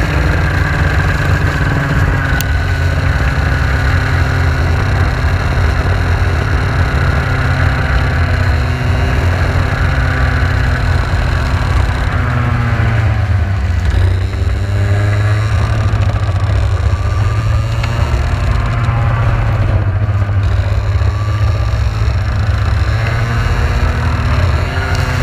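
Engine of a Praga Baby single-seater racing car running hard at speed, heard from on board. The engine note falls about halfway through as the car slows, then climbs again as it accelerates away.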